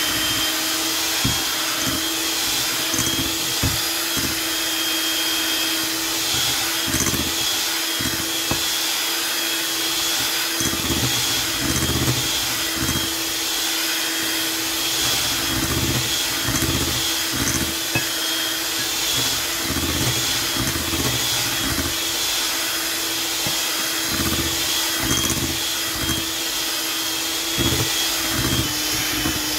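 Electric hand mixer running with a steady motor hum, its beaters whipping an egg-and-sugar batter in a glass bowl as oil is poured in, with irregular low knocks throughout.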